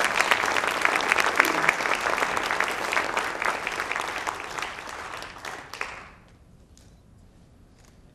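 Audience applauding, dying away about six seconds in, followed by a few faint knocks.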